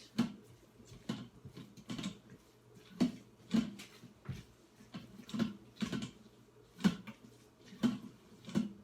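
A spoon stirring a thick, cheesy chicken, broccoli and rice mixture in an Instant Pot's inner pot: short scraping, squelching strokes about once a second as the cheese is worked in to melt.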